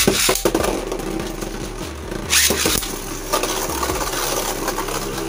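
Two Beyblade Burst spinning tops, Hazard Kirbius and Crash Ragnarok, launched into a plastic stadium: a sharp rip of the launch at the very start, then the tops whirring and scraping steadily across the stadium floor, with a louder clash of the tops about two and a half seconds in.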